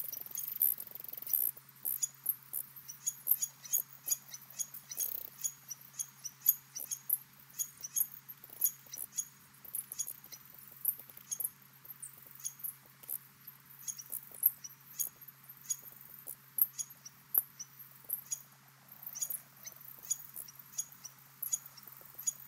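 A busy chorus of short, high-pitched peeps and chirps from wildlife around the pond, several a second, over a steady low electrical hum.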